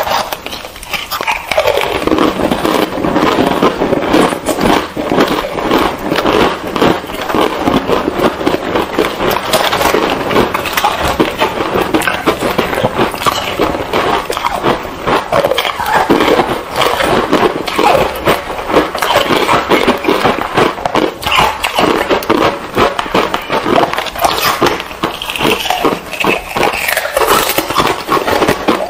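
Close-miked crunching and chewing of frozen ice, two eating tracks layered over each other: a dense, continuous stream of crunches and crackles.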